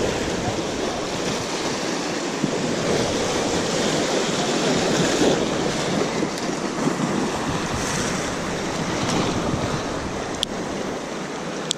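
Sea surf washing and breaking against rocks, a steady rush of water, with some wind on the microphone. A light click near the end.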